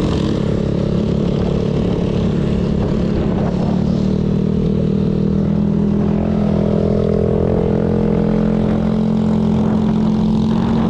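Yamaha Mio Aerox 155 scooter's single-cylinder engine running at a steady cruising speed while riding, its note holding nearly level with a slight rise partway through, over constant wind and road noise.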